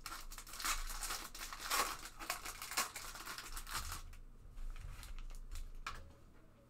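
Plastic packaging on a trading card box crinkling and tearing as it is opened: dense crackles for about four seconds, then a few quieter rustles and clicks.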